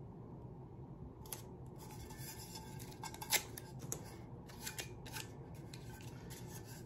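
Fingers rubbing and pressing blue painter's tape onto a stainless tumbler, with a few short crinkles and clicks of tape handling, the sharpest just over three seconds in, over a steady low room hum.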